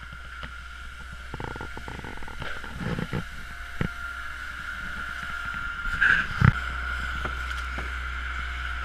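Floodwater being pushed across a wet floor with brooms: irregular swishing and splashing with scattered knocks, the loudest two thumps about six seconds in. A steady high-pitched tone and a low hum run underneath.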